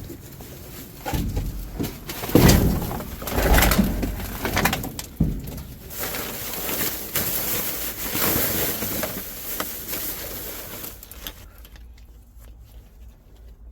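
Rummaging through trash: rustling and knocking of bags and loose items being handled, loudest in a few bursts in the first few seconds and dying down near the end.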